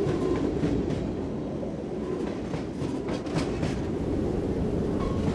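Passenger train running along the tracks, a steady rumble with a few clacks of the wheels over the rails about three seconds in.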